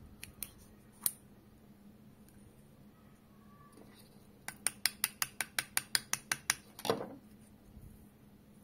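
Plastic parts of a 12-gauge slug shell being handled and pulled apart. A few scattered light clicks come first. About halfway through there is a quick run of about a dozen sharp clicks, roughly six a second, as the plastic wad is worked out of the hull, ending in a duller knock.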